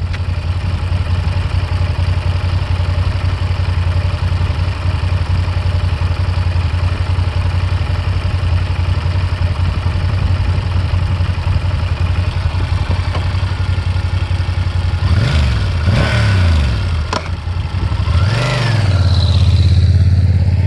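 Yamaha TRX 850 parallel-twin engine idling steadily through its stock exhaust, then revved a few times about 15 seconds in, with a sharp click just after. The revs rise and the engine grows louder as the bike pulls away, then fades.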